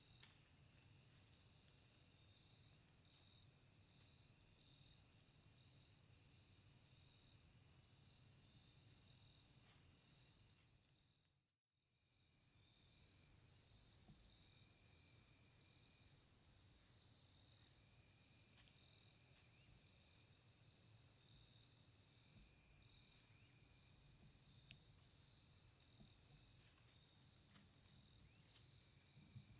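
Chorus of crickets trilling steadily in a continuous high-pitched drone, with a brief dropout a little before the middle.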